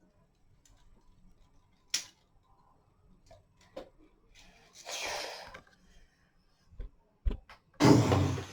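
Plastic Lego pieces being handled: a sharp click about two seconds in, then scattered light clicks and taps, a brief hiss about halfway through, and two low thumps near the end.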